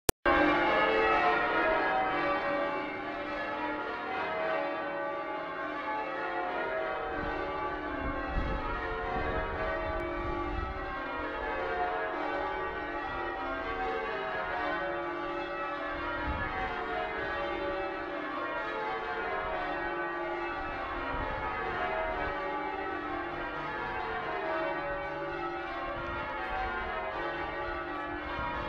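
Church tower bells ringing a continuous peal, many bells struck one after another in a repeating stepped sequence, in the manner of change ringing.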